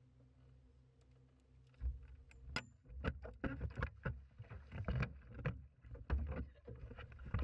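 Irregular knocks and heavier thumps on a bass boat's deck and hull close to the microphone, starting about two seconds in, after a faint steady hum.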